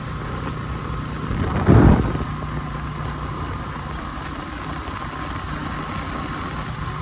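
100cc motorcycle engine running steadily under way, a constant drone mixed with rushing noise. About two seconds in there is a short, louder rush of noise, the loudest moment.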